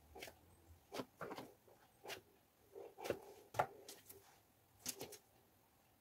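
Plastic dough scraper pressing down through a ball of pastry dough and knocking against the board beneath: a scatter of faint taps and soft knocks that die away about a second before the end.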